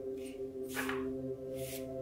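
Soft ambient music with held tones, over which restored hand pump handle parts are handled and fitted together: a short scrape a little under a second in, the loudest sound, and another near the end.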